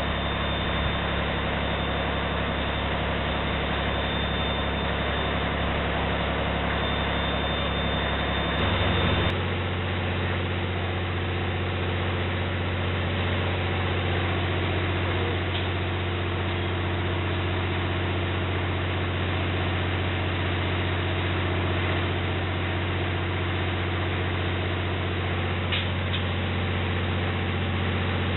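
Heavy diesel engines idling with a steady drone. About nine seconds in, the sound switches abruptly to a slightly different steady drone.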